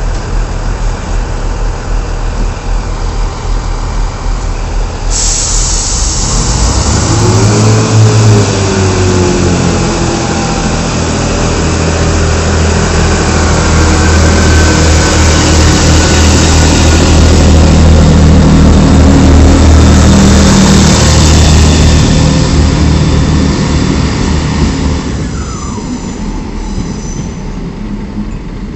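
Class 158 diesel multiple unit idling at the platform, then its engine revs up as it pulls away, building to a loud steady drone with a hiss over it. Near the end the hiss stops, a brief falling squeal sounds, and the engine fades as the train moves off.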